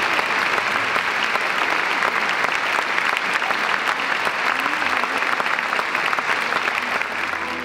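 Large audience applauding: dense, steady clapping that eases off near the end.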